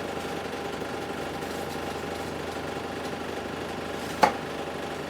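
Steady mechanical hum, with one sharp knock about four seconds in: a kitchen knife coming down on the cutting board while slicing a tomato.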